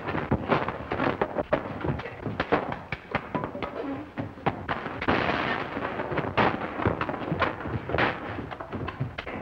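A scuffle in a cabin: a rapid run of thumps and bangs, several a second, with a longer crashing noise about five seconds in.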